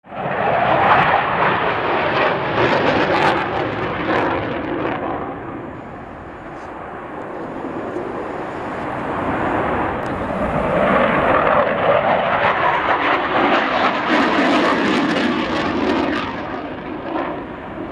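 Fighter jet flying past with loud jet engine noise and a rough crackle, swelling twice: it eases off around six seconds in, builds again towards a second peak and fades a little near the end.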